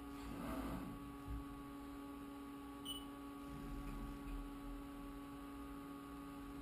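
Steady electrical hum of a Haas CNC vertical mill standing with its spindle stopped, with one short high blip about three seconds in.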